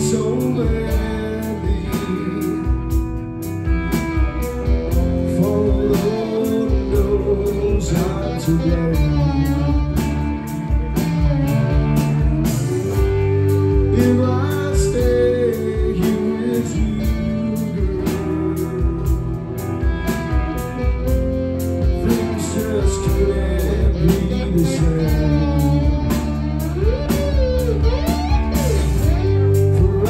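Live blues-rock band: a harmonica played cupped into a vocal microphone carries the lead, with wavering, bending notes over electric guitar and drums.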